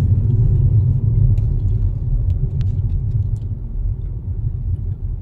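Low, steady rumble of road and engine noise heard from inside a moving car's cabin, easing off somewhat toward the end.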